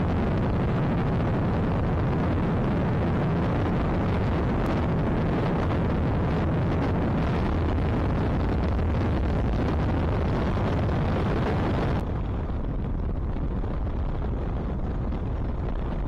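Wind rushing and buffeting over the microphone of a motorcycle moving at road speed on a wet highway, with a steady low rumble underneath. The noise shifts abruptly about four and a half seconds in and drops in level about twelve seconds in.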